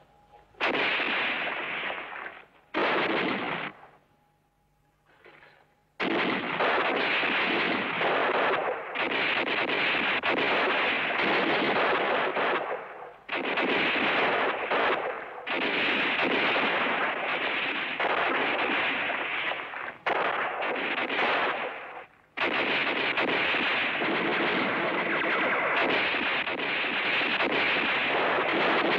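Rifle and machine-gun fire in a battle scene, rapid and nearly continuous, breaking off briefly a few times: early on around the second and from about the fourth to the sixth second, then in short gaps later.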